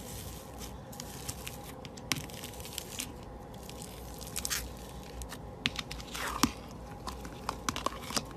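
Foam-bead slime (floam) being pressed and kneaded by hand: irregular crunchy crackles and pops as the beads are squeezed into the slime. The crackling is thickest in the second half.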